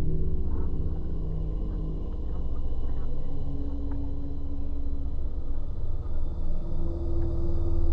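Dark ambient background music: steady, deep drone tones held low in pitch.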